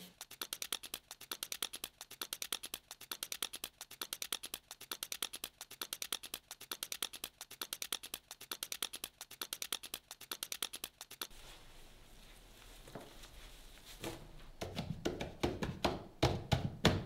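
Y-peelers scraping the skins off raw potatoes in quick, even strokes, many a second, sped up. About three seconds before the end, a run of dull knocks follows as the peeled potatoes are handled.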